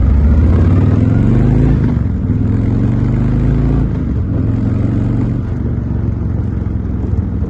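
Harley-Davidson Milwaukee-Eight V-twin motorcycle engine under way. The exhaust note climbs, drops about two seconds in and again about four seconds in, then runs steadier and a little quieter.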